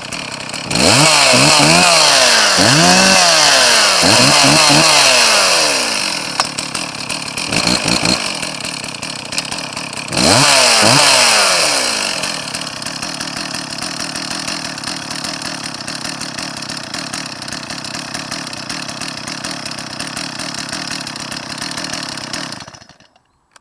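Stihl 034 two-stroke chainsaw revved up several times in quick succession, dropping back to idle between revs, then idling steadily until the engine is shut off near the end.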